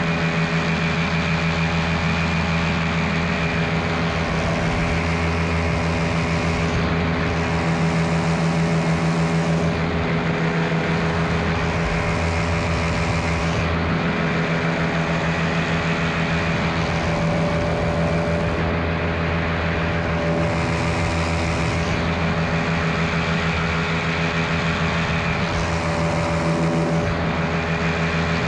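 Miniplane Top 80 paramotor's two-stroke engine running steadily in flight, with a rushing air hiss that swells and fades several times.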